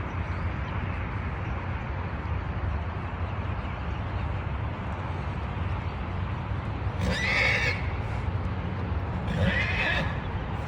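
A mare whinnying twice, about two seconds apart, over a steady low rumble.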